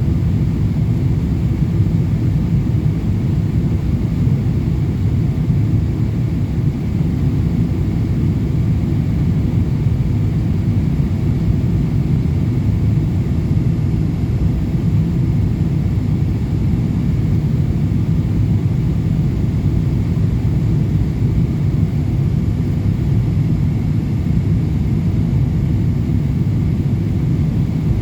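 Steady, even drone of a Boeing 777-200LR airliner in flight: the low rumble of its GE90 engines and rushing air, with a faint steady whine above it and no change in level throughout.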